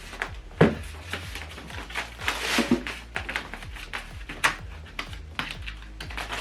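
Packaging and accessories being handled during an unboxing: rustling with a string of clicks and knocks, the loudest about half a second in, over background music with a low bass.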